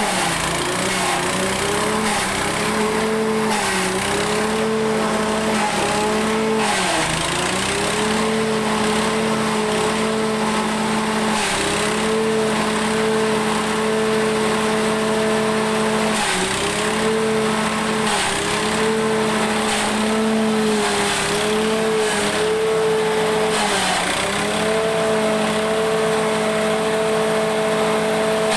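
Grass chopper (forage chopper) machine running steadily, its motor pitch sagging briefly and recovering every four to five seconds.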